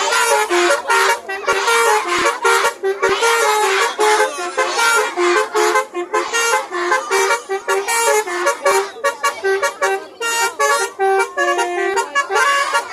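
Telolet basuri horn, a multi-note musical air horn, playing a quick melody of short stepped notes with hardly a break.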